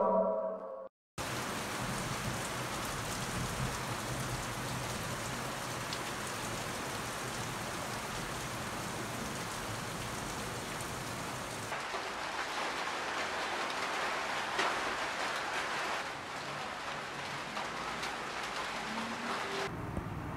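Steady rain falling, an even hiss with no let-up. Near the end it gives way to quieter room tone.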